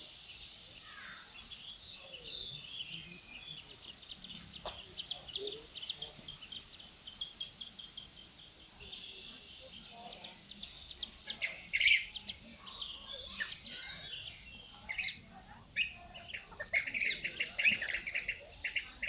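Songbirds chirping and twittering, many quick high calls overlapping. The chirping swells to a loud burst about twelve seconds in and grows busy again near the end.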